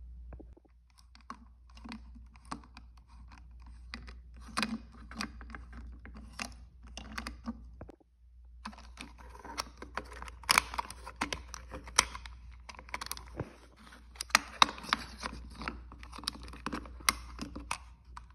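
Irregular plastic clicks and taps as a small plastic toy lorry is picked up and turned over by hand. The clicks grow denser and louder about halfway through, over a steady low hum.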